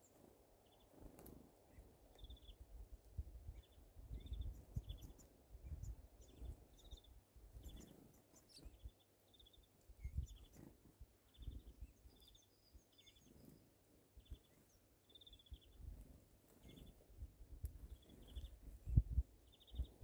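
Small songbirds at a feeder calling: short chirping notes repeated one to two a second, over a low, uneven rumble that is loudest near the end.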